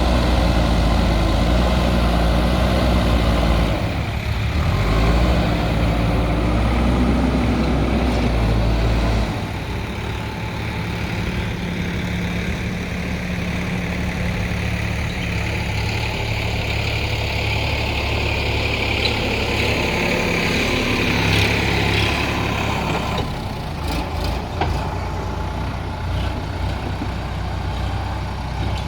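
Diesel engine of a JCB backhoe loader running while it works, heavier for the first nine seconds or so and then a little quieter, with a higher whine rising around the middle.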